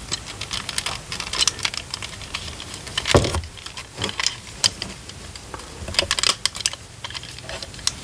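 Hard plastic Hess toy airplane being turned over and handled, giving a run of small plastic clicks and taps, with a louder knock about three seconds in.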